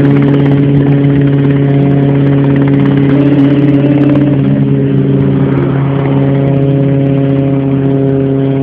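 Helicopter taking off, its engine and rotors making a loud, steady drone that holds one pitch and grows slightly fainter in the second half as it climbs away.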